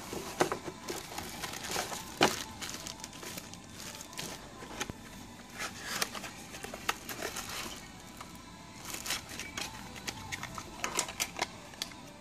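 Plastic packaging and bubble wrap crinkling and rustling as packed accessories are handled in a cardboard box, with irregular sharp clicks and knocks. Music plays underneath.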